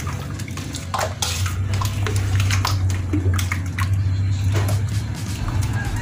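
A hand swishing and splashing sugar water in a large stainless steel bowl, stirring to dissolve the sugar, with irregular sloshes and light knocks against the bowl. A steady low hum runs underneath, growing louder about a second in.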